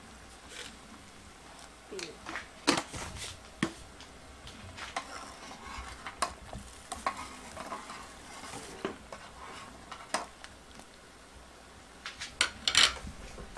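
A metal spoon stirring a pot of boiling water, clinking and knocking against the aluminium pot several times, with the loudest knocks about three seconds in and near the end. Faint bubbling of the boiling water underneath.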